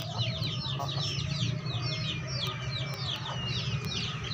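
A dense chorus of short, high chirps from many birds, several a second, over a steady low hum.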